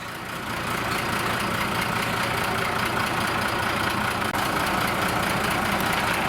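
Engine of a work machine with a hydraulic arm running steadily, growing a little louder over the first second.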